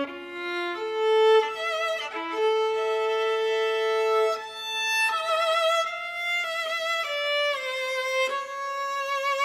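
Viola playing a slow melody alone: held notes with vibrato, moving from one note to the next every second or two.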